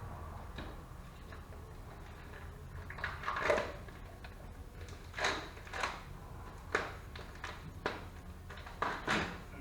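Scattered clunks and scrapes of a mower blade and tools being handled under a riding lawnmower's deck, about half a dozen over several seconds, over a low steady hum.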